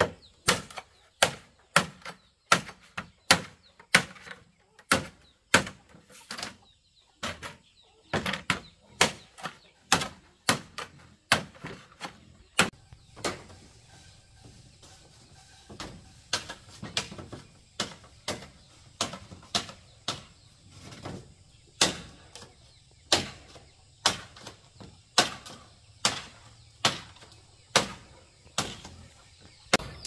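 Large knife chopping bamboo on a wooden board: sharp knocks at about two a second, thinning out briefly around the middle.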